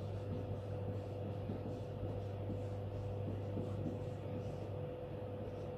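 Steady low hum with a thin steady tone above it, and faint scratchy strokes of a marker writing on a whiteboard.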